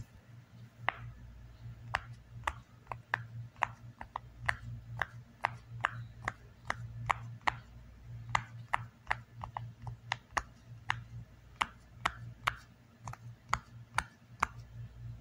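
Silicone pop-it fidget toy having its bubbles pressed by fingers one after another: a run of short, sharp pops, about two to three a second.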